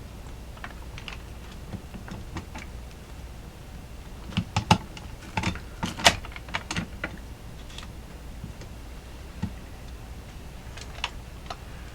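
Scattered light clicks and taps from a Hamilton Beach egg cooker's lever and cooking plates as they are worked to break a cooked egg free from the cooking surface. The clicks bunch up about halfway through, with a few more before and after.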